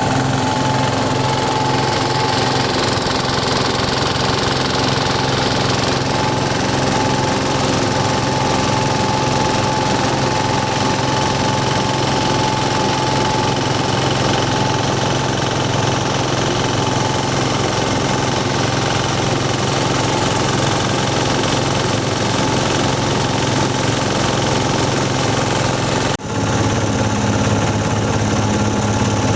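Grass chopper machine running steadily on its small engine, a constant mechanical drone. About 26 seconds in it breaks off for a moment and comes back at a slightly different pitch.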